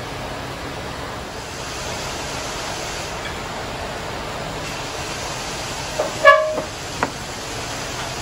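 Steady shop background hiss, broken about six seconds in by a short, loud horn-like toot of about half a second, followed by a sharp click about a second later.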